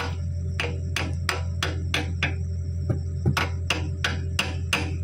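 Hammer blows on steel, about three a second, with a short pause near the middle, typical of driving a bucket pin in or out while changing an excavator bucket. A steady low hum runs underneath.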